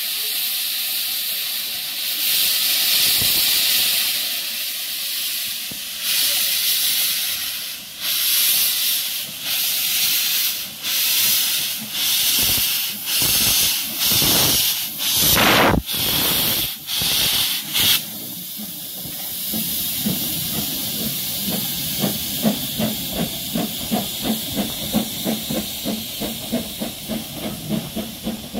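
Narrow-gauge steam tank locomotive starting away. Steady steam hiss gives way to loud blasts of hissing steam from the open cylinder drain cocks, one with each stroke and coming quicker. About eighteen seconds in the blasts stop and a quieter, faster exhaust beat takes over, fading as the engine draws away.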